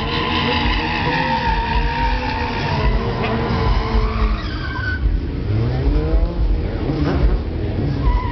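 Sportbike engine running at high revs. About five seconds in, the revs start to rise and fall as the bike is held up on its back wheel in a wheelie.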